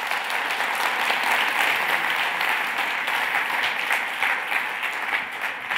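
A large audience clapping together in sustained applause.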